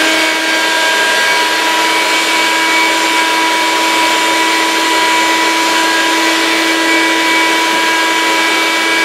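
Vacuum cleaner powering a vacuum-forming box through its hose, running steadily at full speed with an even whine. It is drawing vacuum in the box, ready for the heated plastic sheet to be pulled down over the plug.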